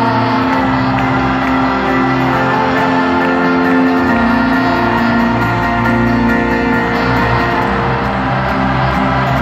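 Live folk-rock band playing at full volume in an arena, heard from high in the stands: strummed acoustic guitar, upright bass and keyboard.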